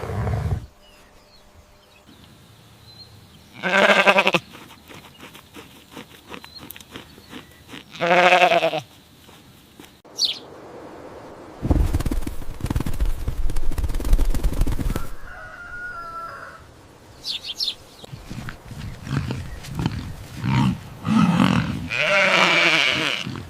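Goat bleating: two wavering cries, each about half a second long and some four seconds apart. Later comes a low, noisy stretch of about three seconds, then a run of shorter animal sounds.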